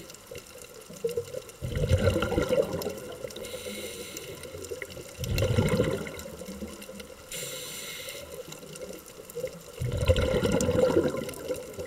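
Scuba diver breathing through a regulator underwater: a hiss on each inhale, and a louder bubbling rush on each exhale. The breaths come in a steady cycle of about four seconds, with three exhales.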